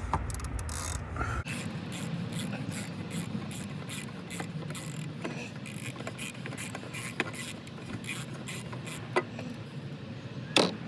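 Ratchet wrench on the oil filter housing cap clicking in a quick, uneven run of sharp clicks, with one louder click near the end.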